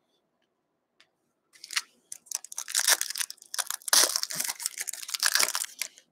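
Plastic wrapper of a hockey card pack being torn open and crinkled by hand: irregular crackling and tearing that starts about a second and a half in and runs in several rustling stretches.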